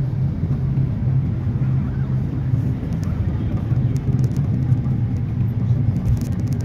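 Steady low engine and road rumble heard inside the cabin of a vehicle moving along an expressway, with a constant low drone and a few faint ticks and rattles.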